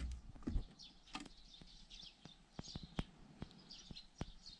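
Faint scattered knocks and clicks of loose wooden boards and debris shifting underfoot, with birds chirping faintly in the background.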